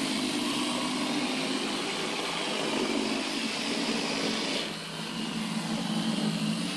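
Model trains running on the layout: a steady whir of the small electric motors and wheel noise on the track. About two-thirds of the way through, the higher hiss drops away and a lower hum is left.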